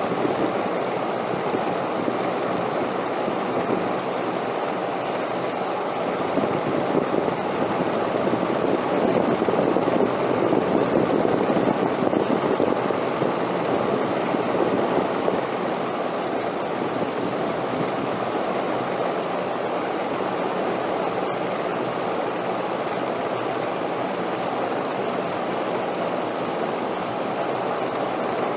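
Wind blowing steadily as a deep, even rush, swelling stronger about a third of the way in and then easing back.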